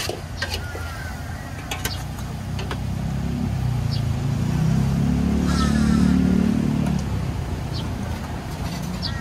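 A motor vehicle passing on the road, its engine drone swelling to a peak about two-thirds of the way through and then fading. Short metallic clinks of ladles and serving spoons on stainless steel buffet trays sound on top.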